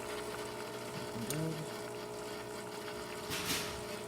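Gaggia Titanium super-automatic espresso machine pulling a shot, its vibratory pump humming steadily. There is a brief hiss about three and a half seconds in.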